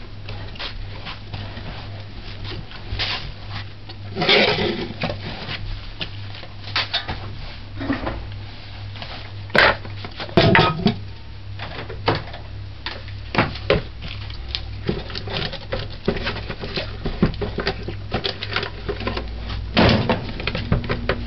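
Kitchen clatter of a glass blender jar and utensils being picked up and set down on a tiled counter: a string of irregular knocks and clinks, the loudest about four seconds in, ten seconds in and near the end, over a steady low hum.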